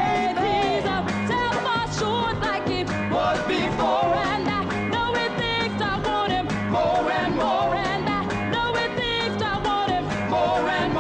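A vocal group singing with a live band: voices with vibrato over drums and guitar, with a steady beat.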